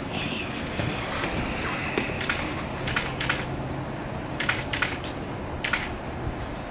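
Camera shutters clicking about six times at uneven intervals from about two seconds in, some in quick pairs, over a low steady hum.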